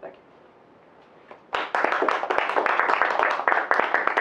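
Audience applauding, starting about a second and a half in.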